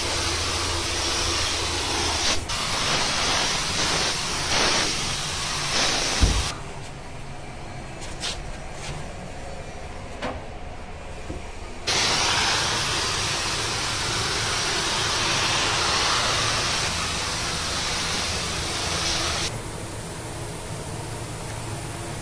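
Compressed-air spray gun hissing as it sprays paint onto a car body, in two long passes with a quieter gap between them. A single low thump comes about six seconds in, and a low steady hum runs underneath.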